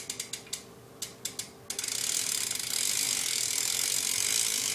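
Ratchet of a Haro BMX bike's drivetrain clicking as the cranks and wheel are turned: a run of even clicks slows to a few single clicks, then under two seconds in gives way to a fast, steady ticking that grows louder.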